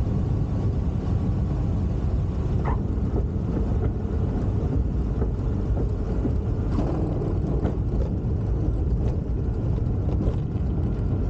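Jabiru 3300 six-cylinder air-cooled engine of a Zenith 601 XL light aircraft running steadily at low power while the plane taxis on the runway, heard from inside the cockpit, with a few faint clicks.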